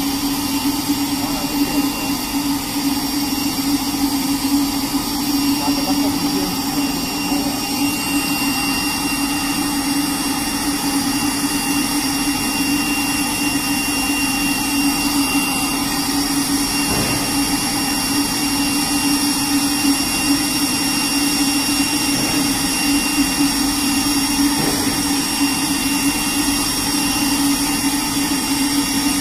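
Spray dryer running steadily: a constant hum with several thin, high whining tones held above it.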